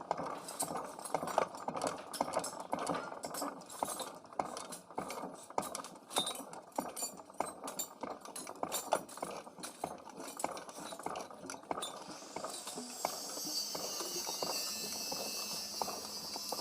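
Irregular sharp knocks and clinks, several a second, for about twelve seconds. Then a steady high hiss starts and carries on.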